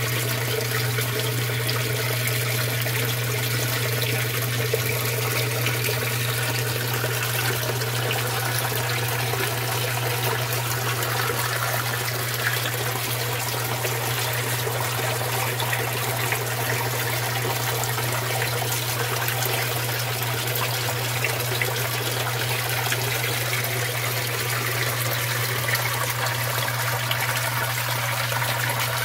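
Water from a turtle tank's filter outflow pouring in thin streams and splashing steadily into the tank water, over a steady low hum.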